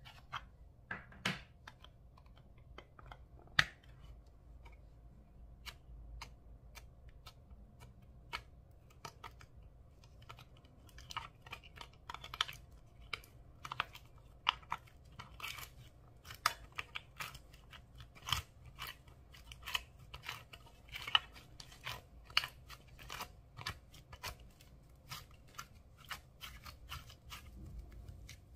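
A few sharp plastic clicks as a pencil case is handled and opened, then thick purple slime being pulled out and stretched, giving a dense run of sticky crackles and small pops.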